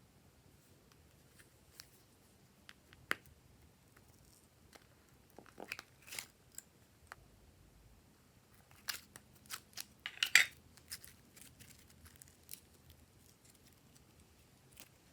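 Scattered sharp clicks and crackles, with two busier clusters about six and ten seconds in.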